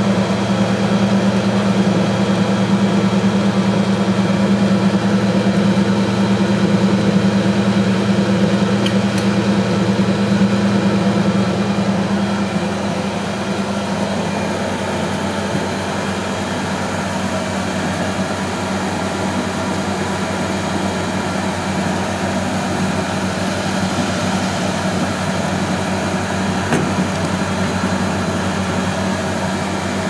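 Miele Automatic 416 front-loading washing machine spinning its drum, a steady machine hum that drops a little in level about twelve seconds in.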